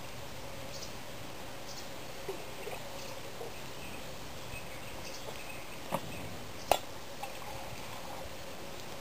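Quiet outdoor background hiss with a few light clinks of spoons and dishes, the two sharpest about two-thirds of the way in, less than a second apart.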